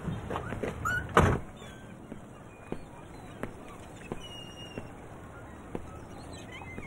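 A car door shutting with one loud thud about a second in, after a few light clicks, then soft footsteps on pavement, evenly spaced and slow.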